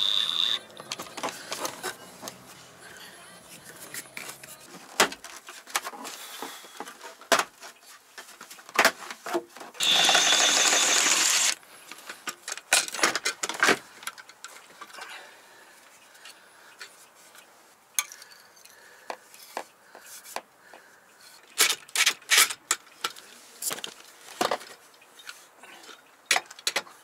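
DeWalt cordless drill running in short steady bursts with a high motor whine, one ending just after the start and one of about a second and a half about ten seconds in. Between them, scattered clicks and knocks of tools and wooden 2x2 framing being handled.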